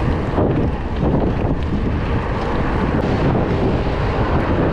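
Wind buffeting the microphone of a moving mountain bike rider's camera: a loud, steady, dense low noise with no break.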